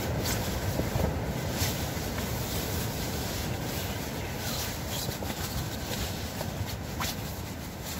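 Strong wind buffeting the tent, a steady rushing rumble, with rustling and a few sharp clicks as clothing and gear are handled inside.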